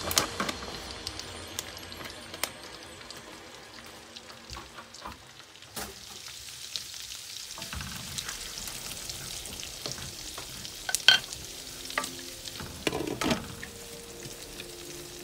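Diced bacon sizzling and crackling in hot oil in a frying pan, stirred with a wooden spoon that scrapes and taps against the pan. A few sharp knocks come in the second half as a glass lid is put on the pan.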